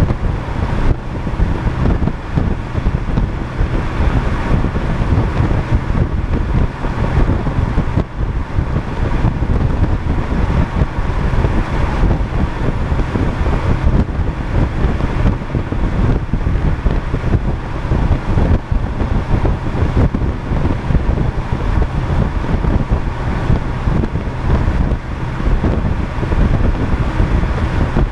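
Wind buffeting the microphone of a car-mounted camera at highway speed, mixed with the car's road and tyre noise: a loud, steady, low rumble that flutters constantly in level.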